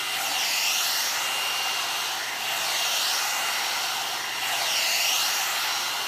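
Hot air dryer brush running on its high speed setting: a steady rush of blown air that swells and shifts in tone every couple of seconds.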